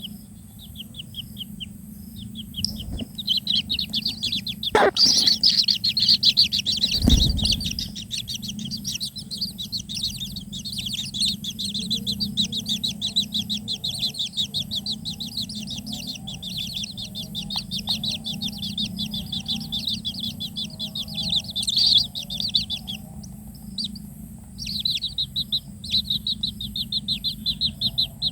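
Kingfisher chicks giving rapid, repeated high begging chirps in a long near-continuous chatter that breaks off briefly near the end. There are two thumps about five and seven seconds in.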